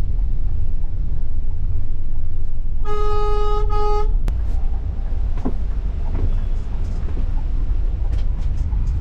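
Low, steady rumble of a double-decker bus driving through city traffic, heard from inside, with a vehicle horn honking about three seconds in: one blast of about a second, broken by a short gap near its end.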